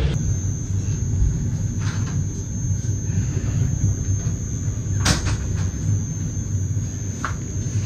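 Low, steady rumble of a passenger train rolling slowly along the track, with a thin steady high whine and a sharp knock about five seconds in.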